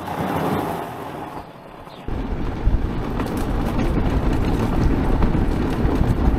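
Homemade electric ATV, a Honda quad converted to hub motors, pulling away with its tyres crunching on gravel. About two seconds in the sound jumps to a loud, steady low rumble of wind buffeting and tyre noise on a dirt track, heard from on board the moving quad.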